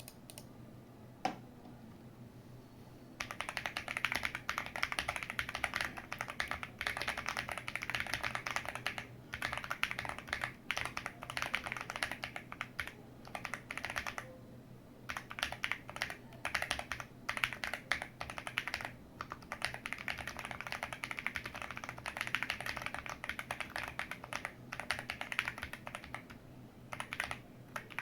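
Rapid typing on a JRSI65 mechanical keyboard with stock Tecsee Ice Milk Mango tactile switches and Retro 9009 doubleshot ABS keycaps, on an FR4 plate with a two-layer tape mod and foams. A single keystroke about a second in, then steady fast typing from about three seconds in, with short pauses around the middle and near the end.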